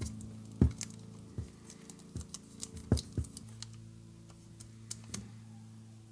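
Irregular clicks and knocks of hands handling a loudspeaker part on a workbench while pressing masking film down over its label and burnishing the edge with a stick; the two loudest knocks come about half a second in and near three seconds. A steady low electrical hum runs underneath.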